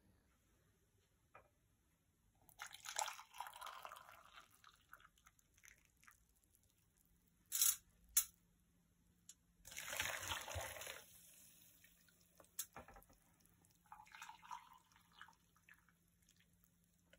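Water poured in short splashes onto lumps of jaggery in a cooking pot, three pours in all, with two sharp clicks between the first and second.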